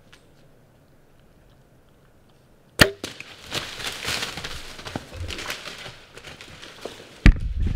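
A bow shot about three seconds in, heard as one sharp snap, and then a blacktail deer bolting away through dry fallen leaves with a run of scuffling and rustling. Near the end there is a second sharp knock.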